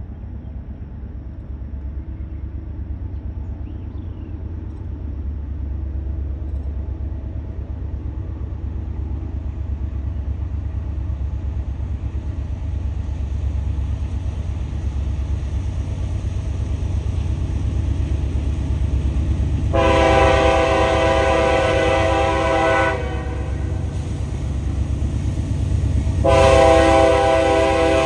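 Freight train's diesel locomotives approaching, a low rumble that grows steadily louder. The lead locomotive's air horn sounds two long blasts of several tones at once: one about twenty seconds in, lasting about three seconds, and another near the end.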